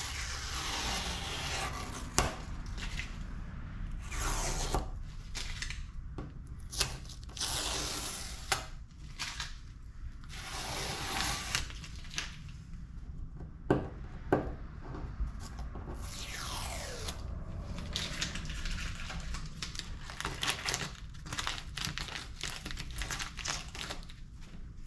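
Masking tape being peeled off fiberglass around a freshly cut hole, in a series of tearing pulls each about a second long, with a few sharp clicks in between.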